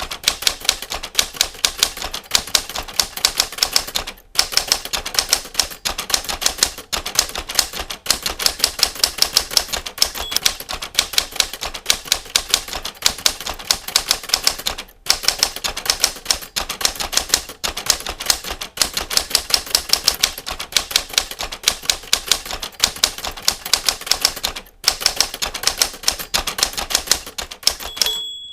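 Manual typewriter keys striking in a fast, continuous run of clicks, broken by a few brief pauses. Near the end a single short ringing tone sounds, the line-end bell.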